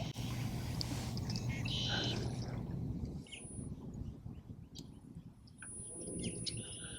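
Birds chirping over a low rumble of water and wind. The rumble drops off about three seconds in, leaving the chirps clearer.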